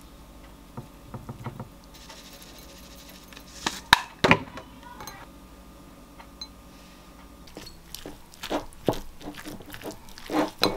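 Tableware handling: a few light taps about a second in, two sharp knocks about four seconds in, then a metal spoon clinking and scraping against a ceramic bowl while bibimbap is stirred near the end.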